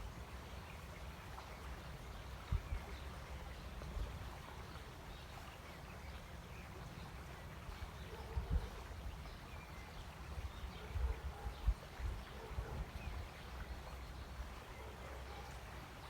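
Outdoor nature ambience: a steady low rumble with faint scattered chirps, and a cluster of soft low thumps between about eight and twelve seconds in.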